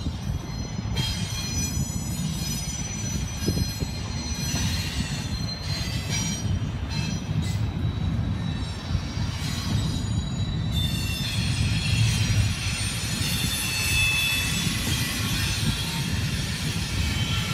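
Double-stack intermodal container train rolling past, a steady low rumble of wheels on rail with high-pitched steel-wheel squeal over it that grows louder in the second half.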